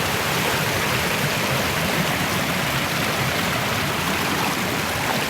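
Stream water rushing steadily, an even, unbroken noise.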